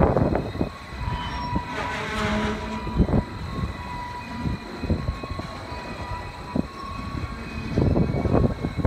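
Freight train of tank cars rolling past close by, the wheels clacking over the rail joints. The clacking is loud at the start, drops back between cars, and comes on strong again near the end.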